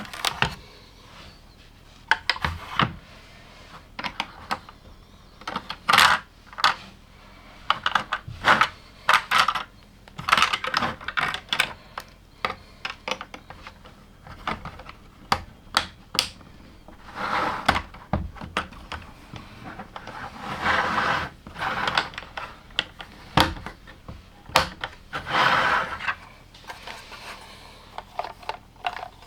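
Plastic LEGO pieces being handled and pressed together: irregular sharp clicks and snaps, with a few longer stretches of rattling as loose pieces are sorted through.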